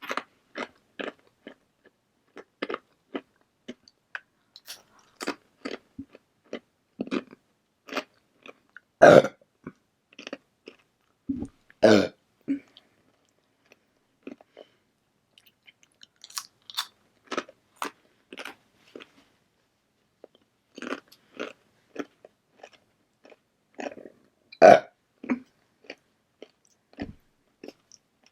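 Close-miked eating sounds: a steady run of wet chewing and biting with some crunching, broken by a few louder mouth bursts, about 9, 12 and 25 seconds in.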